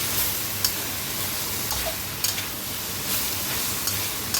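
Beef and cabbage sizzling in a hot pan, with a sharp scrape or clack of the spatula against the pan about once a second as the stir fry is stirred.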